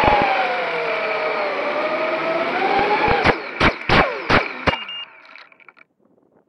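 Small FPV quadcopter's brushless motors whining, the pitch rising and falling as it comes down low. Then about six hard knocks as it strikes the grass and tumbles, and the motor whine slides down and cuts out, leaving near silence.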